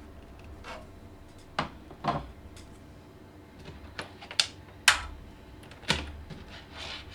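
Scattered sharp clicks and light knocks of screws and metal PC case parts being handled. There are about eight of them, irregularly spaced, and the loudest comes about five seconds in.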